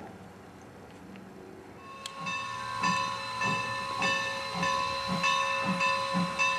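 Steam locomotive working slowly, its exhaust chuffing about twice a second with a hiss of steam, while a steady high-pitched ringing tone sounds over it. The first two seconds are a quieter, even rumble before the chuffing starts.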